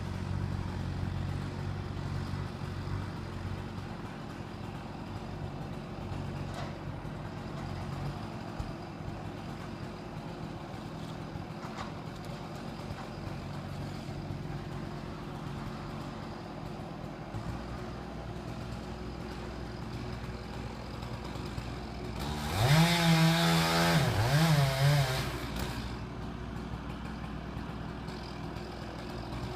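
Chainsaw idling, then revved to full throttle for about three seconds about 22 seconds in, its pitch wavering as it runs.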